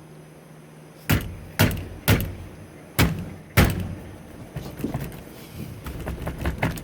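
A car's stock steering wheel being smacked to knock it loose from the steering column splines after its centre nut has come off: five sharp thumps over the first few seconds, then lighter, irregular knocks and rattles as it starts to give.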